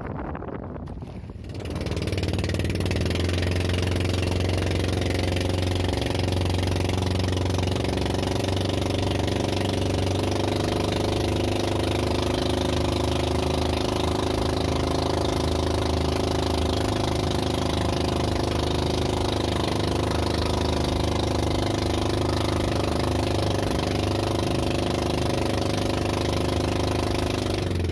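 Motorised outrigger boat's engine running steadily at a constant pitch, with a deep hum and a stack of steady overtones; it rises in loudness about a second and a half in, then holds level.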